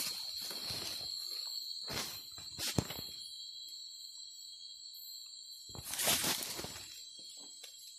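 Leaves and branches rustling and snapping as dense undergrowth is pushed through, with a sharp knock about three seconds in and the loudest crashing about six seconds in, over a steady high-pitched insect drone.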